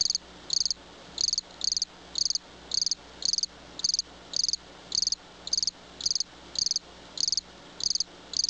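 Crickets chirping in a steady rhythm, about two chirps a second, each chirp a quick trill of pulses.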